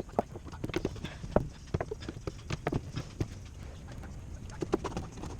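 Irregular light knocks and clicks, several a second, with uneven spacing and strength.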